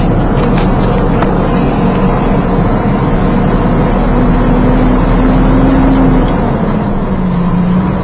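Truck engine running steadily as it crawls across a wooden plank bridge, its note dropping slightly about six and a half seconds in. A few light clicks in the first second.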